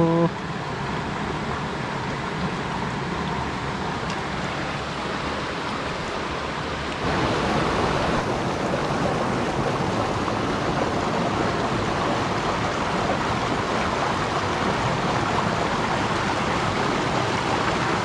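Mountain stream rushing over rocks in a small cascade, a steady splashing hiss that grows a little louder about seven seconds in.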